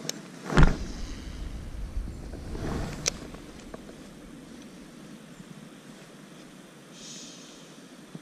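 A cast with a bamboo rod and a small baitcasting reel. A click comes first, then a loud whoosh with a deep rumble about half a second in as the rod swings through the cast. A sharp click near three seconds comes from the reel re-engaging, followed by a quieter retrieve.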